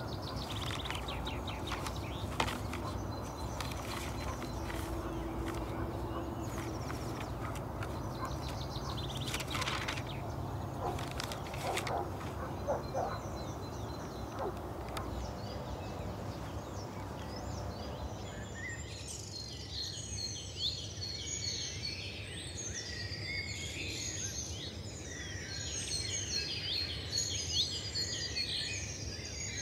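Steady outdoor ambience with a low rumble and a few short sharp noises. About two-thirds of the way through the rumble drops away and many birds chirping take over.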